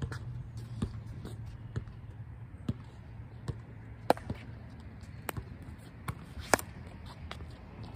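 Pickleball rally: sharp pops of paddles striking a hard plastic ball, with ball bounces on the court, about one a second. The loudest pops come about four and six and a half seconds in.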